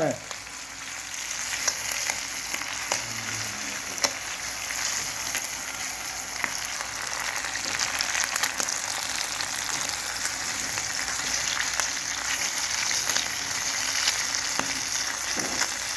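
Freshly caught squid sizzling and crackling as it fries in hot oil in a pan: a steady hiss with small pops throughout.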